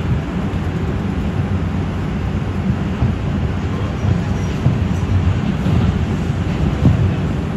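NYC Subway R142 car running along the track, heard from inside the car: a steady rumble of wheels on rail, with a few louder knocks in the second half.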